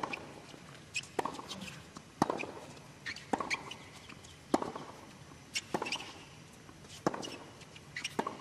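Tennis rally on a hard court: sharp racket hits and ball bounces about a second apart, some in quick pairs, with short high squeaks of tennis shoes on the court between them.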